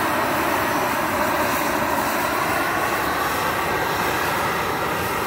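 Shrinkfast propane shrink-wrap heat gun burning steadily, its flame played over the plastic film on a pallet's side to shrink and tension it. It makes an even, unbroken noise with a faint hum.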